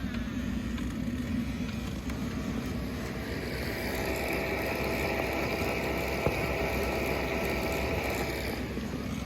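Steady vehicle running noise with a low rumble. A higher whine joins about three seconds in and fades away near the end.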